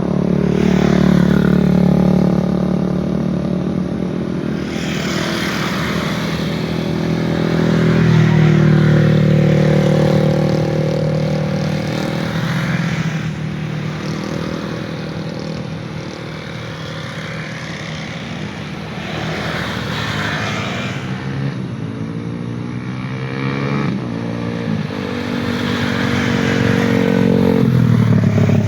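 Engines of motor vehicles passing one after another, the loudness swelling and fading with each pass and the engine pitch sliding down as vehicles go by.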